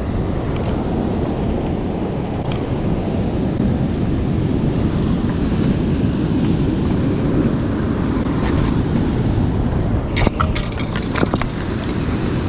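Wind buffeting the microphone over the steady wash of the sea, with a quick run of sharp clicks and knocks about ten seconds in.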